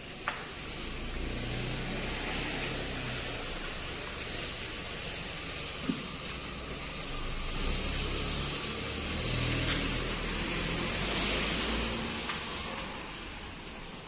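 A car's engine running at low speed as it reverses and pulls away: a steady low hum with a hiss over it, and a couple of small clicks.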